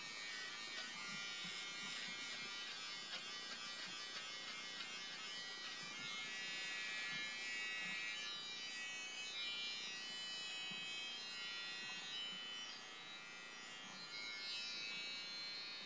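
BaByliss for Men i-stubble electric beard trimmer running with a steady whirr as it is drawn over the jaw and neck, cutting stubble. It switches off near the end.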